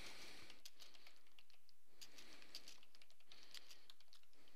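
Typing on a computer keyboard: a quick, uneven run of key clicks, several a second.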